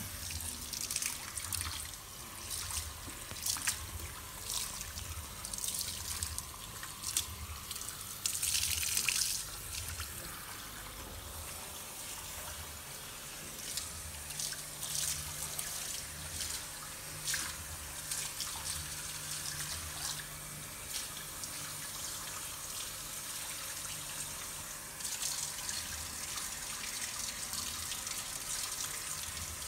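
Hands rubbing and kneading skin in a rhythmic massage, a little over one stroke a second, with many small crackles and a steady hiss over it.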